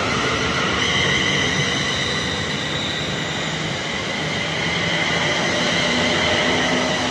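A train moving past along the platform: a steady rumble and hiss of wheels on rails, with several high, steady whining tones over it.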